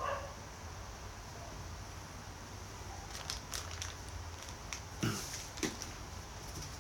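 Handling and movement noise: a few faint clicks and rustles, then two louder knocks about five seconds in, as a person shifts and gets up from a desk chair, over a low steady hum.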